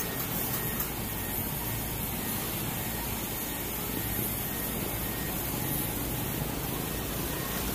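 Diesel construction machinery running steadily on a building site: a low engine rumble under an even noise, with no distinct strokes or pauses.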